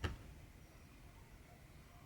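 One short tick from cross-stitch needle and cotton thread on the fabric right at the start, then quiet stitching room tone.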